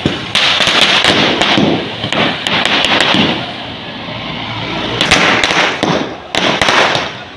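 Ground fountain firework hissing and crackling as it sprays sparks, in loud surges dotted with sharp cracks and pops.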